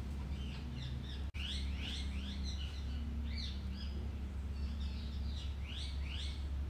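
Small birds chirping in quick rising and falling notes over a steady low hum. The sound cuts out for an instant about a second in.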